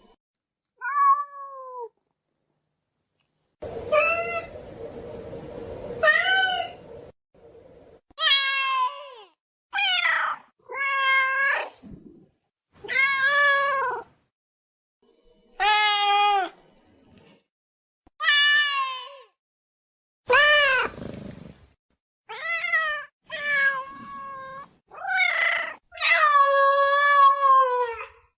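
Domestic cat meowing: a string of about fifteen separate meows, most under a second long, with dead-silent gaps between them as from spliced sound-effect recordings. One longer, drawn-out meow comes near the end.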